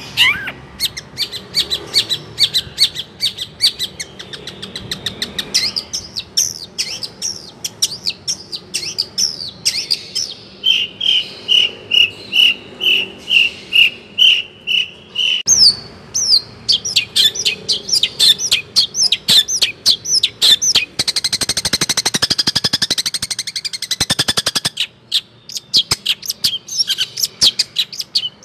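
A songbird singing a loud, varied song of rapid, sharp chirps. Midway it gives a run of about ten evenly spaced whistled notes, and later a fast trill.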